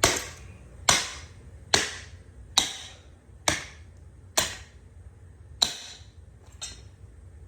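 A hammer striking a steel lawn mower blade to beat a bend out of it: about seven sharp metallic blows, roughly one a second, each ringing briefly. The last blows come weaker and further apart.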